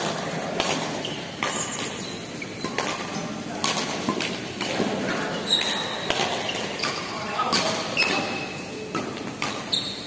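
Badminton doubles rally: rackets strike the shuttlecock again and again at an uneven pace, mixed with footfalls and short squeaks of court shoes on the court.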